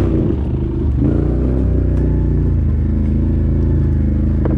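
ATV engine running while riding, its pitch dipping and rising in the first two seconds, then holding steady.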